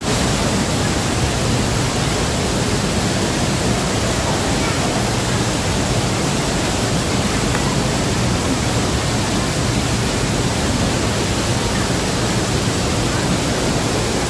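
Waterfall pouring: a steady, loud rush of water.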